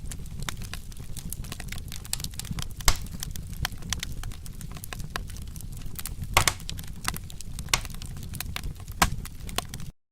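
Wood fire crackling: a steady low rumble of flames under many irregular snaps and pops, with a few louder pops. The sound cuts out abruptly for a moment near the end.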